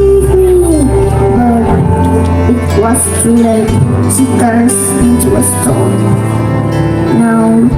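Music with a singing voice carrying a melody over a heavy bass.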